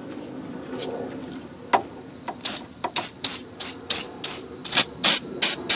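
Aerosol can of PB Blaster penetrating oil spraying in about a dozen short bursts, roughly three a second, starting about two seconds in: penetrant going onto corroded mounting studs.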